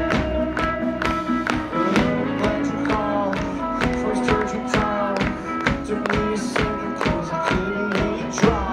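Live country band playing with a steady drum beat: acoustic guitar, pedal steel guitar and electric bass.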